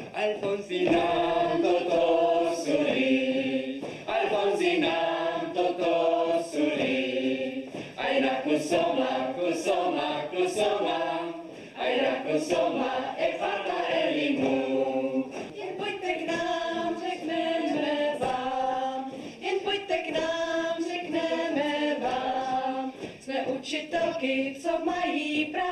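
A group of adults, mostly women, singing a song together without accompaniment, in phrases of about four seconds with short breaks between them.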